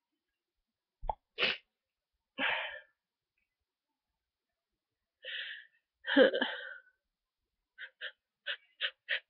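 A stuffed-up person with a head cold sniffling and sneezing: a few sniffs and breaths, one sneeze about six seconds in (the loudest sound), then a run of quick short sniffs near the end.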